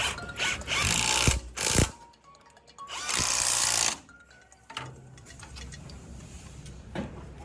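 Three bursts of hissing workshop-tool noise, the longest about a second, over background music.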